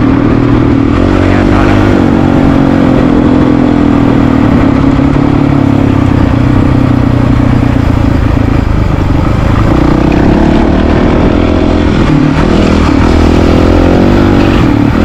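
Honda CRF450RL's single-cylinder four-stroke engine running under way on a dirt road, its pitch rising and falling as the throttle opens and closes.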